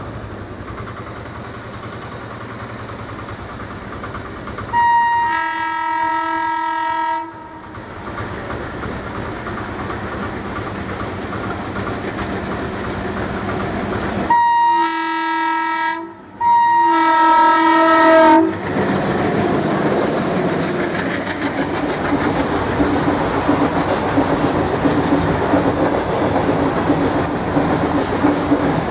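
Twin ALCO WDG-3A diesel locomotives approaching with engines running, sounding a multi-tone horn three times: one long blast about five seconds in, then two shorter blasts close together about ten seconds later. As the locomotives pass, the wagons follow, rattling with their wheels clacking over the rail joints.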